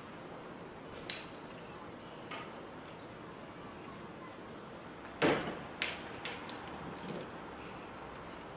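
Knocks and clatter of waste being handled at a van's rear doors: a sharp click about a second in, then a loud knock about five seconds in followed by two quicker clicks, over a steady background hum.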